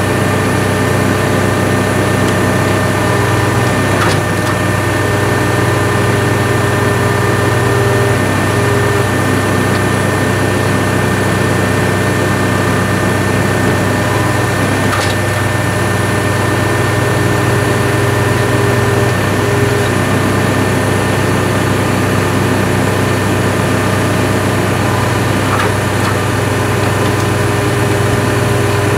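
Engine-driven hydraulic power unit running steadily under load, driving a pipe-bursting puller that is drawing a new sewer pipe through the old line, with a few faint clicks.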